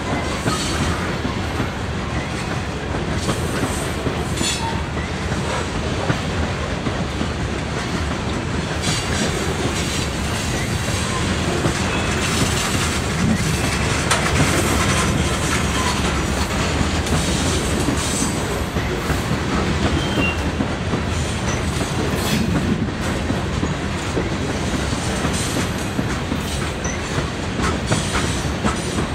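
Covered hopper cars of a potash freight train rolling past steadily: a continuous rumble of steel wheels on rail, with irregular clicks and clacks as the wheels cross rail joints.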